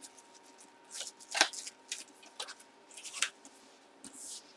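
Hands handling a small cardboard box: a few short, scattered rustles and scrapes, the loudest about a second and a half in.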